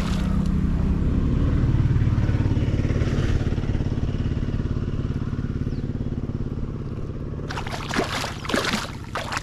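A motor's steady low drone, loudest in the first few seconds. Near the end, a hooked fish splashes and thrashes at the water's surface as it is brought in.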